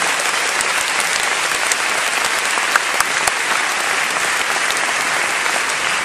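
Audience applauding steadily: dense, even clapping with a few sharper single claps standing out.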